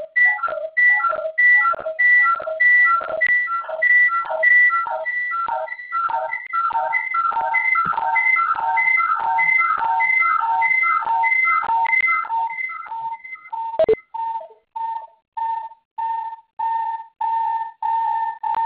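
Audio feedback howl in a conference call: a whistling tone pulsing about twice a second, caused by a cell phone on speakerphone feeding the call's sound back into itself. A sharp click comes about fourteen seconds in; after it the pulses are broken by short silences and run together into a steady whistle near the end.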